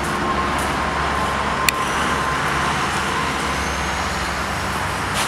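Steady outdoor rumble and hiss like passing road traffic, with a faint steady tone and a single sharp click about two seconds in.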